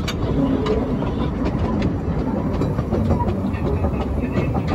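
Kerr Stuart Wren 0-4-0 saddle-tank steam locomotive running steadily on narrow-gauge track, heard from the footplate. A continuous running rumble is broken by scattered sharp clicks from the wheels on the rails.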